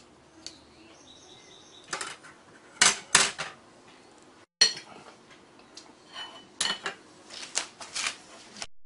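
Chopsticks and a porcelain spoon clinking against porcelain dishes: a series of short, sharp clicks in small clusters, with a brief high ringing note about half a second in.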